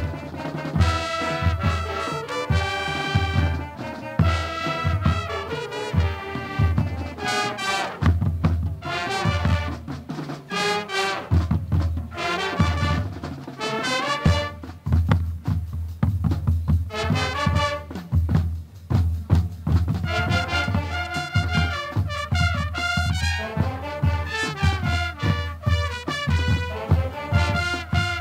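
Marching band playing: trumpets, trombones and saxophones carrying the tune over a steady drum beat, thinning out briefly a few times along the way.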